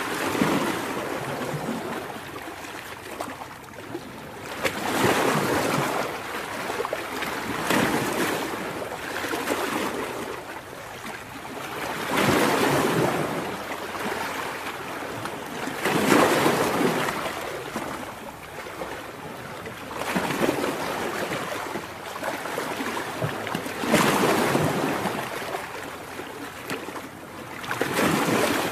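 Ocean surf breaking on a sandy beach, the wash swelling and falling back every three to four seconds.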